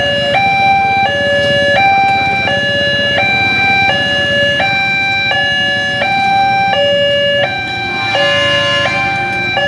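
Railway level-crossing warning alarm sounding: two electronic tones, a lower and a higher, alternating about every 0.7 seconds, over a low rumble of idling traffic.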